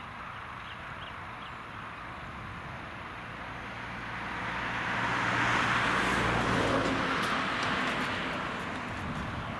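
New Holland tractor working with a Lemken plough passing close by. Its diesel engine hum and the noise of the ploughing build from about four seconds in, are loudest around six to seven seconds, then fade away.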